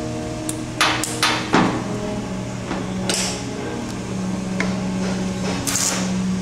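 Sharp knocks and clicks of a plastic pneumatic valve body being fitted back together and screwed down with a screwdriver, four in quick succession, the last the loudest. Then short hissing spurts as water escapes at the valve's end-plug connection, whose O-ring is not sealing, over a steady low hum.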